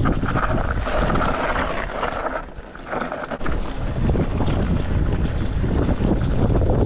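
Wind buffeting the microphone of a camera on a mountain bike descent, with a dense clatter of small knocks and rattles from the bike over rough trail. The noise drops off briefly about two and a half seconds in, then comes back.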